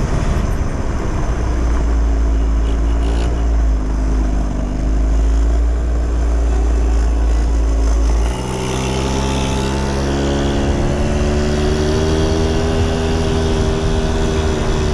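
Yamaha Jog mini bike's small two-stroke scooter engine running steadily under way, its pitch rising and falling slightly, with heavy wind rumble on the microphone. About eight seconds in the wind rumble drops away and the engine's note comes through clearer.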